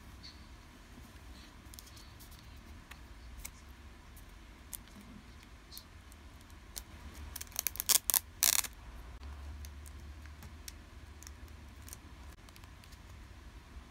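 Clear plastic photocard sleeves crinkling and rustling as cards are handled and slipped into them, with scattered light clicks and a short burst of louder crackling a little past the middle.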